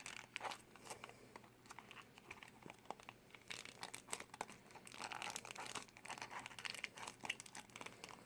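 Plastic wrapping on a small toy blind box crinkling and rustling as fingers pick and pull at it, with scattered small clicks. The plastic is tight and hard to get open.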